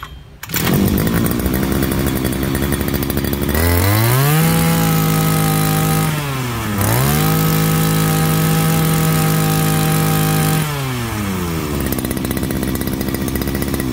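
A Husqvarna-branded 541 brush cutter's two-stroke engine (40 mm bore) is pull-started on a test run and catches at once to idle. It is revved twice to a high, steady full-throttle pitch, dropping back to idle briefly between the two revs and again near the end.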